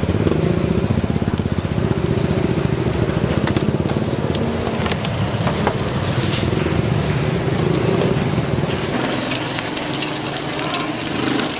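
A motorcycle engine running close by with a rapid, even pulse. About nine seconds in it fades and the sizzle of food frying comes up.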